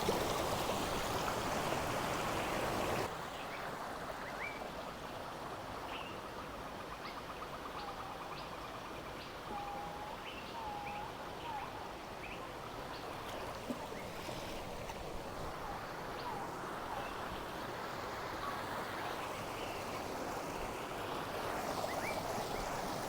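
River water rushing steadily, dropping in level about three seconds in and building again near the end, with birds calling in short chirps through the middle.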